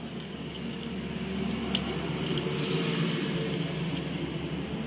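A few sharp metallic clicks from a motorcycle gearbox's gearshift mechanism, worked by hand as gears are shifted, over a steady low mechanical hum.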